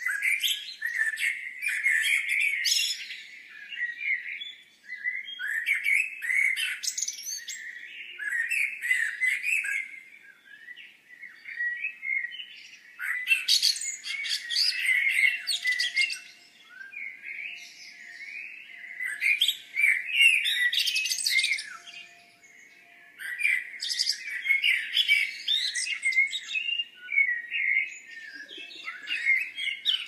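Songbird song: rapid, high chirping and twittering phrases of a few seconds each, broken by short pauses.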